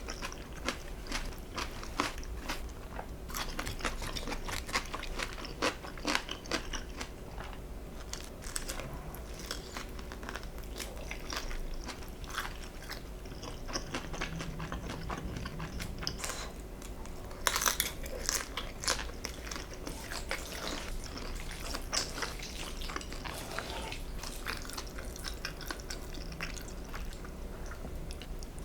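Close-miked eating sounds: steady chewing with irregular crisp crunches, the loudest cluster of crunches a little past halfway.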